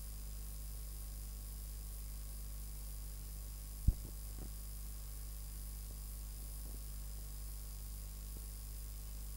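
Steady low mains hum with faint hiss from a videotape playing past the end of its recording, broken by a single sharp click about four seconds in.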